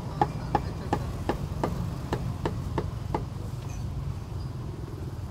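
A cleaver chopping on a block: a steady run of knocks, about three a second, growing fainter and stopping a little past halfway, over a low hum of street noise.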